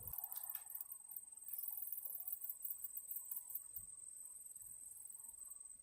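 Faint, high-pitched insect chirring with a fast pulsing shimmer, likely crickets, going steadily throughout. A few light clicks come in the first second.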